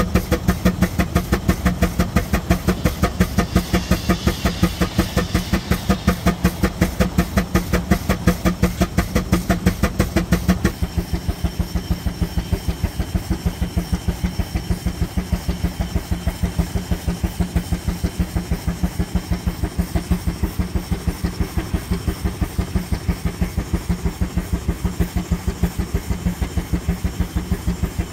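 Steam traction engine running with a steady, rapid chuff of exhaust beats and a hiss of steam. About eleven seconds in the higher hiss fades, while the even beat carries on.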